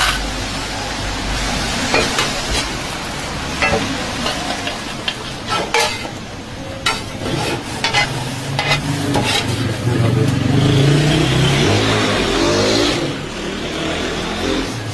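Bread sizzling on a steel griddle under a heavy iron press plate, with sharp clicks and scrapes of metal utensils against the griddle. About ten seconds in, a louder engine-like rumble swells for a few seconds.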